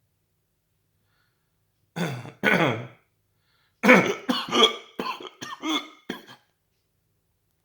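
A person's short voiced bursts from the throat: two about half a second apart, then after a brief pause a quick run of about six.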